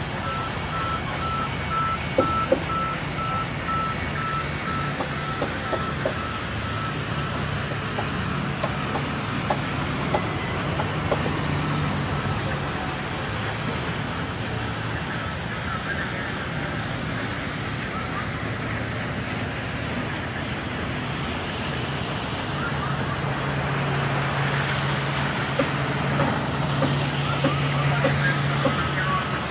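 Band resaw running and ripping a wooden plank lengthwise: a steady low motor hum under the noise of the blade cutting the wood, with a few scattered knocks. A thin high whine sounds over the first several seconds, and the hum grows louder in the last several seconds.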